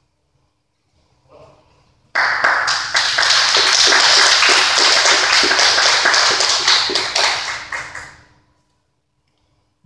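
Audience applauding: many hands clapping start suddenly about two seconds in and die away about six seconds later.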